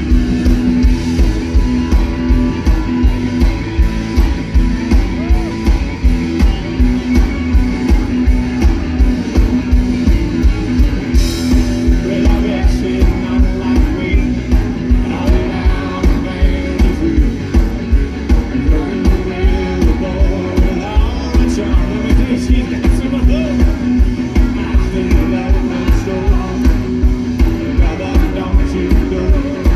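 Live rock band playing loud with electric guitars, bass and drums keeping a steady beat, and a lead singer over them.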